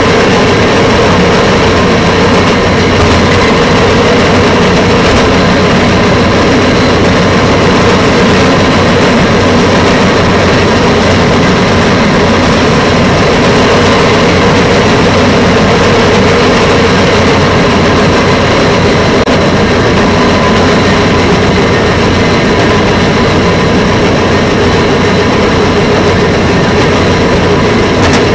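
Rail vehicle SHX 4033 travelling along the track, its engine and running gear making a loud, steady drone with a constant whine and no change in pitch.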